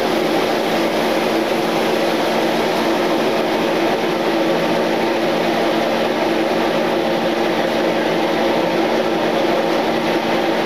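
Kitchen exhaust fan running: a steady, unchanging whir with a low hum under a hiss.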